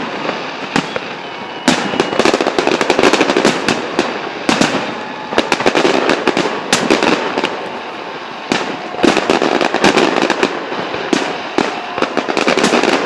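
Fireworks display: a rapid string of sharp bangs with dense crackling between them.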